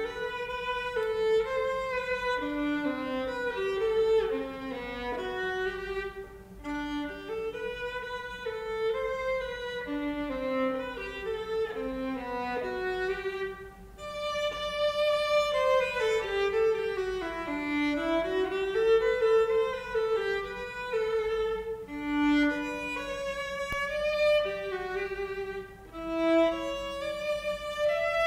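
Solo violin playing a melody in phrases, with a falling run a little past the middle that climbs back up.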